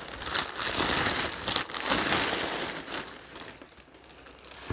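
Plastic packaging crinkling and rustling as it is handled and pulled off a boxed statue, loudest in the first couple of seconds and then dying down.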